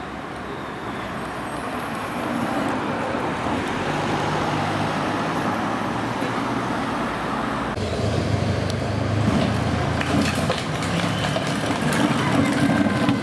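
Team support car's engine running as it follows a time-trial cyclist past, with tyre and road noise, getting louder as it comes close. Near the two-thirds mark the sound cuts abruptly to louder traffic rumble with scattered clicks.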